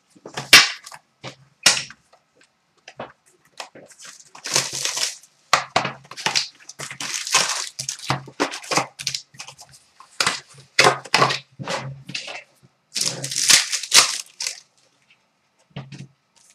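A box of 2012-13 Upper Deck Artifacts hockey cards being opened and its foil-wrapped packs pulled out and stacked: repeated bursts of crinkling wrapper and rustling cardboard, with short pauses between handlings.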